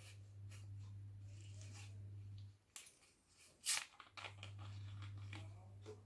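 A plastic soda bottle is handled, with scattered clicks and rustles and one short, sharp hiss about two-thirds of the way through, as of a Thums Up bottle cap being twisted open. A steady low hum runs underneath and drops out for about a second and a half in the middle.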